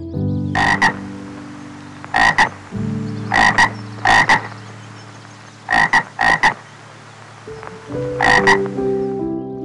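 A frog croaking: about seven short calls, each a quick double note, spaced one to two seconds apart.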